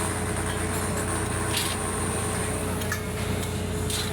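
A machine's engine running steadily, a constant low hum with a steady whine above it, with a few short clicks and knocks over the top.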